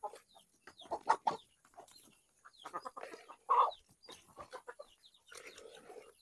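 A flock of Bangkok game chickens clucking in short separate calls as they crowd round feed, with scattered sharp clicks and a louder call about three and a half seconds in.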